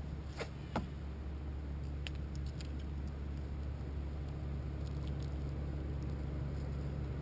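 Light clicks and ticks of a rod and spinning reel being handled: two sharp clicks under a second in, then a few faint ticks around two and five seconds in, over a steady low hum.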